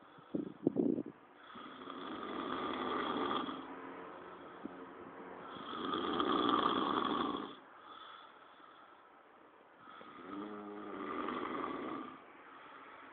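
A person snoring loudly: three long rasping snores about four to five seconds apart, each swelling and fading over about two seconds. A few short, sharp sounds come about half a second in and are the loudest moment.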